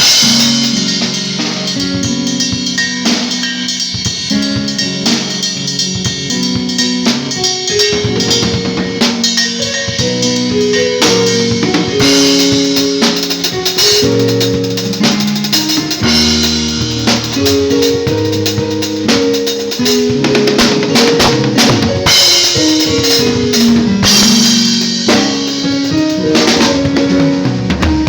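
Drum kit played during a sound check, with frequent kick, snare and cymbal strikes. Sustained pitched notes step up and down beneath the drums.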